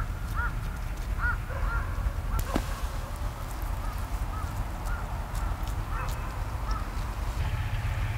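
Birds calling in short, repeated chirps that are closer together and louder in the first couple of seconds and fainter later, over a steady low rumble.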